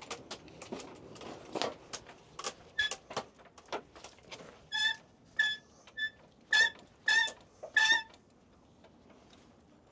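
Jack being let down under a Jeep: a few clicks and knocks, then a run of about seven short, high squeaks, all at the same pitch and about half a second apart.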